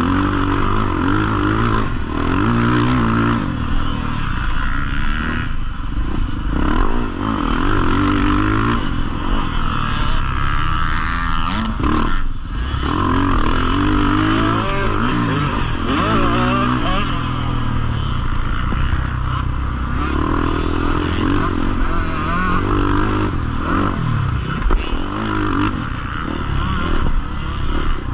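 Husqvarna FC450 single-cylinder four-stroke motocross engine ridden hard around a dirt track, revving up and dropping back again and again as the rider works the throttle and gears. About twelve seconds in the engine sound drops away briefly before picking up again.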